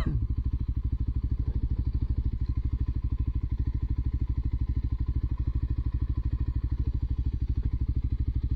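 Motorcycle engine running steadily at low revs, an even, rapid pulsing throb, with one short sharp click right at the start.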